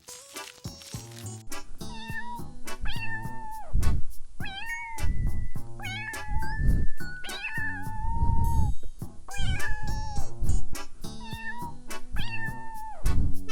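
An animal's drawn-out pitched calls, about six of them, each bending in pitch, over background music with a steady beat.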